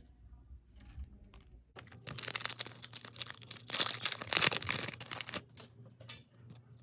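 Foil trading card pack wrapper being torn open and crinkled by hand: a few faint clicks, then a few seconds of loud crackling that tails off.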